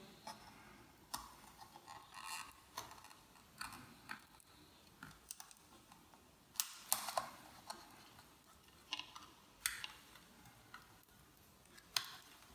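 Irregular small clicks and taps of cable connectors being pried and unplugged from a ThinkPad T460s mainboard with a screwdriver tip. The loudest clicks come in the middle and once near the end.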